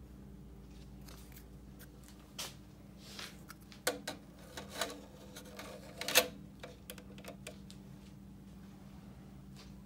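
Metal gobo holder plate clicking and knocking as it is handled and slotted into the gobo projector, a run of sharp clicks about halfway through with the loudest one near the end of it. A steady low hum runs underneath.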